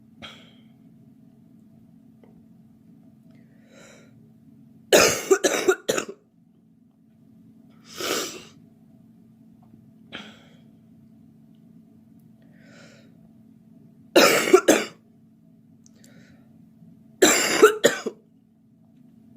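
A girl coughing in three hard fits of several quick coughs each, about five, fourteen and seventeen seconds in, with single coughs and faint breaths in between.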